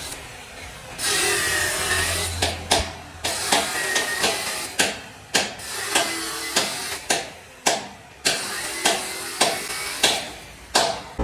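A hand tool striking repeatedly, about two sharp knocks a second, starting about two seconds in over a rough scraping noise.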